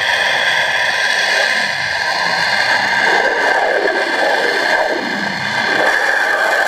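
Pressure-washer jet spraying underwater, picked up from beneath the surface: a loud, steady hiss with a steady high whine running through it and a shifting, churning rush of bubbles lower down.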